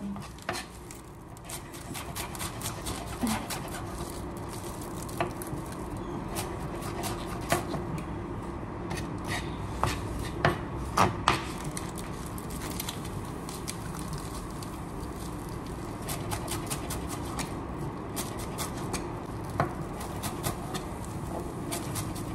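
Broad-bladed kitchen knife chopping green onions on a plastic cutting board: a run of quick, irregular taps of the blade against the board, over a steady low background hum.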